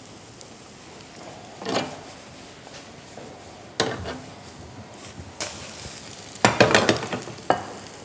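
Food sizzling in a pan on the stove while a utensil stirs and scrapes in it, with several sharp clatters against the pan near the end.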